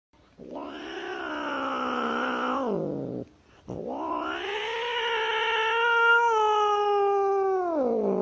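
A grey domestic cat gives two long, drawn-out meows. The first lasts about three seconds; the second starts after a short break, runs about four and a half seconds, and each ends with a falling pitch.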